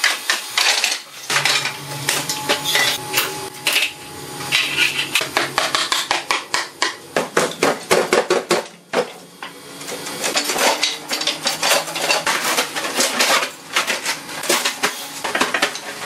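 Steel pry bar knocking and scraping against wooden formwork boards and concrete as the shuttering is stripped from under a cast concrete countertop, with loose boards clattering. The knocks come in quick, irregular runs throughout.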